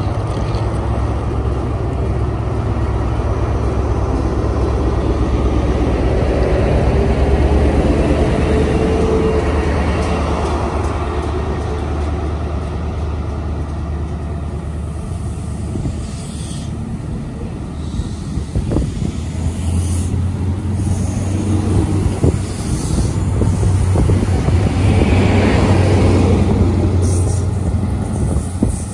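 ScotRail High Speed Train pulling out of the station: the lead Class 43 diesel power car's engine drones loudly as it passes, then the coaches run by with clicks over the rail joints, and the rear power car's engine swells again near the end.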